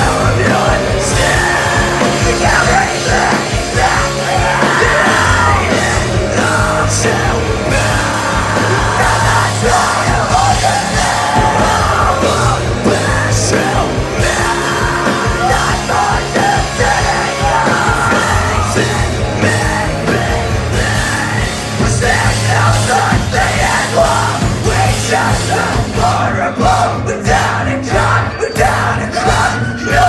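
Live rock band playing loud: distorted electric guitars, bass guitar and drum kit, with shouted, half-sung lead vocals. Near the end the band breaks into choppy stop-start hits.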